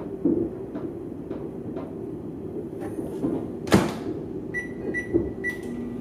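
Microwave oven in use: light knocks as the sandwich is flipped on the plate, then the door shut with a loud clunk about four seconds in. Three short keypad beeps follow, and the oven starts up with a steady hum near the end.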